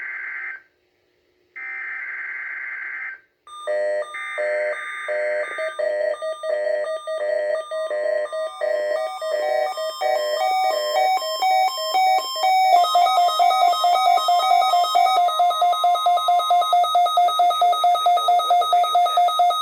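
NOAA Weather Radio SAME header: buzzy digital data bursts with short gaps between them, sent to trigger weather radio receivers for the required weekly test. Then a weather radio receiver's alarm beeps in a fast pulsing pattern, becoming louder and busier about two-thirds of the way in.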